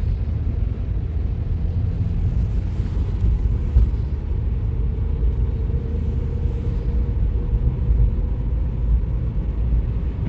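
Steady low rumble of a car heard from inside the cabin, with a faint thin hum showing up in the middle.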